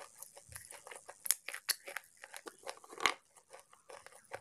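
Slate pencils being bitten and chewed close to the microphone: a dense run of crisp, gritty crunches, with two louder cracks about a second in and again near three seconds.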